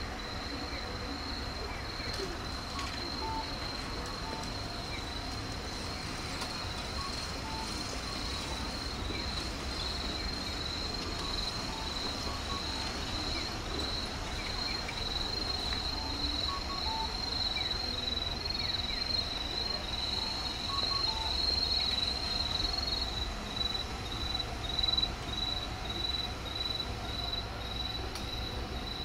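Crickets chirping: one high, even pulse that repeats about twice a second, over a low rumble.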